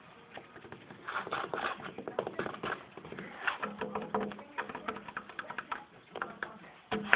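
Fingers tapping and scratching on a wooden board to tempt a cat: a quick, irregular run of clicks and scrapes, with a louder knock near the end.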